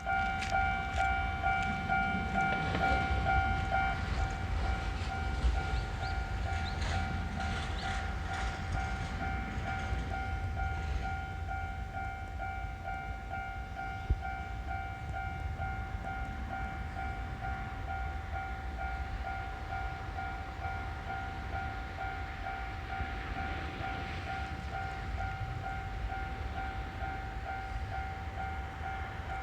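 Japanese railway level crossing warning bell ringing its steady 'kan-kan' alarm throughout. A Kintetsu 9020 series train, coupled sets, passes over the crossing in roughly the first ten seconds with wheel clatter and rumble, which then fades.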